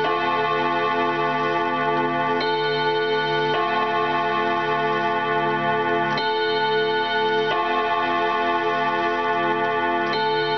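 ODO chiming wall clock's hammers striking its metal chime rods, playing a slow tune: a new note about every one to three seconds, each ringing on and overlapping the next.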